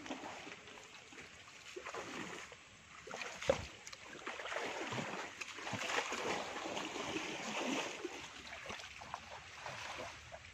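Water and mud sloshing and splashing in irregular bursts as people wade and grope through a muddy creek bank, with one sharp slap about three and a half seconds in.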